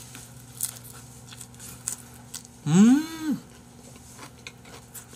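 A man with his mouth full gives one loud closed-mouth 'mmm' hum, about three seconds in, its pitch rising, holding briefly and falling. Soft chewing and lip-smacking clicks run around it.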